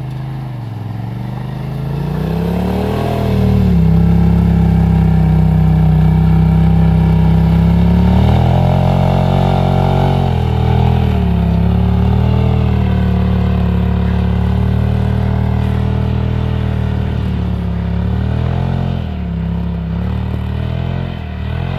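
Can-Am Maverick X3's turbocharged three-cylinder engine under throttle, revving up about two seconds in and held high, then dropping and rising again several times.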